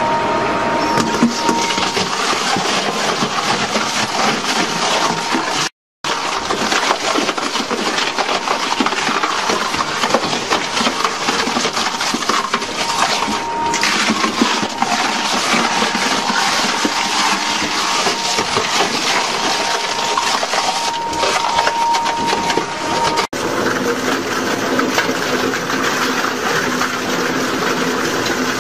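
Industrial shredding machine crunching and breaking up material, with a dense, continuous crackle and snapping, and a brief drop-out about six seconds in.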